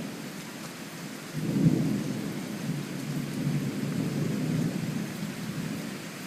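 Thunder rolling during a thunderstorm over steady rain: the rumble swells suddenly about a second and a half in and rolls on for several seconds before fading near the end.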